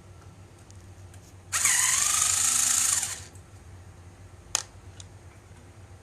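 Electric screwdriver running in one burst of about a second and a half, followed by a single sharp click about three seconds later.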